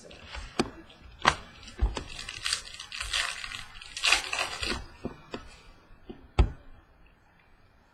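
Handling trading cards on a wooden table: a few sharp clicks and knocks as a hard plastic card holder is put down, then about two seconds of crinkly rustling as cards are picked up and shuffled, and one more knock near the end.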